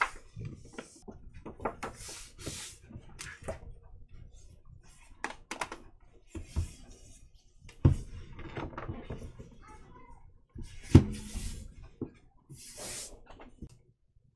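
Handling of a hardcover dot-grid notebook: paper pages rustling as they are turned, with soft knocks and clicks, and two louder thumps about eight and eleven seconds in as the cover is closed and the book moved on the table.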